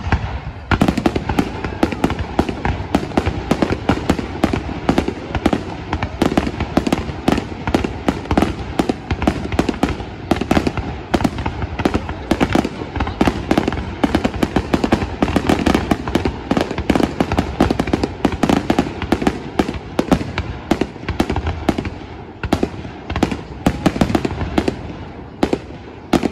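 Aerial fireworks display: a dense, continuous barrage of shell bursts and crackling, beginning sharply about half a second in and easing off near the end.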